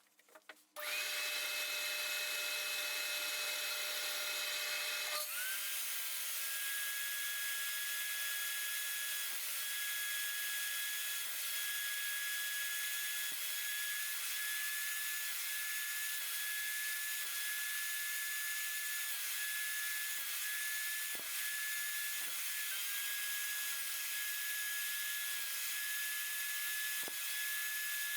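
An electric power tool starts up about a second in with a high, steady whine. A few seconds later its pitch drops and then holds, with small dips, as it works under load on wood.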